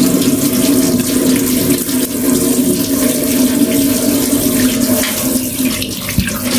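Tap water running steadily into a sink, with a brief knock about six seconds in.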